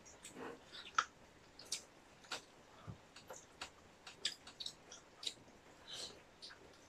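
People chewing food close to the microphone: soft, irregular wet clicks and mouth smacks, roughly two a second.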